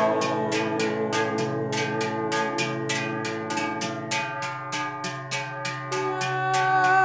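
Background music: held chords over a steady percussive tick, about three or four ticks a second.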